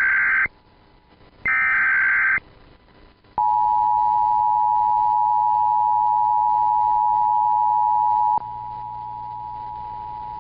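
Emergency Alert System tones announcing a child abduction alert: the tail of one burst of the SAME digital header and then one more full burst, each a short harsh data tone, followed about a second later by the two-tone attention signal, a steady dual beep. About five seconds after the attention signal starts, it drops in volume and carries on.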